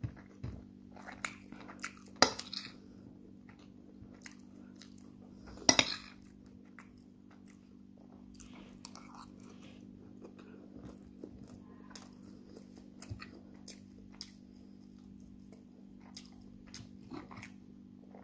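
Metal spoon clinking and scraping against a plate of jollof rice, with chewing between scoops. There are two sharp clinks, about two seconds in and about six seconds in, and softer small ticks through the rest.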